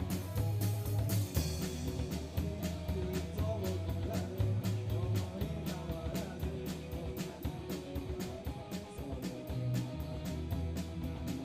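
Rock band playing live through an instrumental passage of a song, with guitar over a steady, evenly spaced drum beat and a heavy low bass part.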